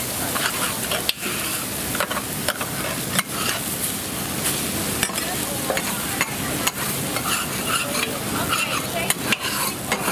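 Oyster pancake frying on a flat steel griddle with a steady sizzle, while two metal spatulas scrape and clink against the griddle, pressing and turning the pancake in irregular sharp strokes.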